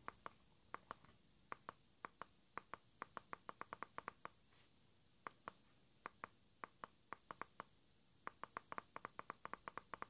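Buttons of a handheld universal remote control clicking as they are pressed again and again to step through its code sets: sharp irregular clicks, a few a second at first, then bunching into a quick run of about eight a second near the end.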